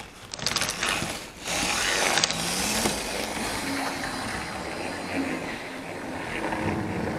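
Old Tri-ang OO gauge model locomotive running slowly around the layout, a steady mechanical running noise of motor and wheels on the track with a faint hum. There are a few sharp clicks near the start.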